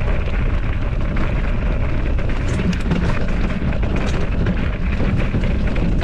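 Mountain bike rolling down a stony singletrack: a steady low rumble of wind buffeting the camera microphone, with tyre crunch on gravel and frequent small clicks and rattles from the bike over the rough ground.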